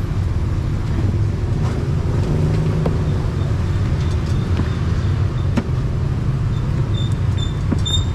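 Street traffic: motor vehicles running past in a steady low rumble, with a faint high beep repeating about three times a second in the second half.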